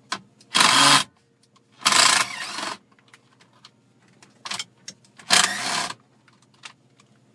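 Cordless power driver with a 7mm socket whirring in three short bursts, each half a second to a second long, as it backs out dash bolts. Light clicks of the socket and loose bolts fall between the bursts.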